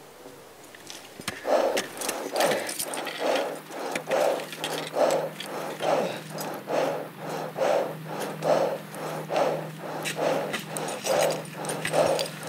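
A mountaineer's heavy, rhythmic breathing, a hard breath a little more than once a second, starting about a second in, the panting of exertion while climbing at high altitude. Sharp clicks of crampons and tools on rock come in between, over a steady low hum.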